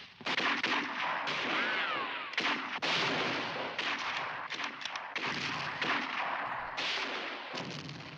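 Battle sound effects: rapid rifle and machine-gun fire with heavy blasts, shot after shot, and a brief whistling glide about two seconds in.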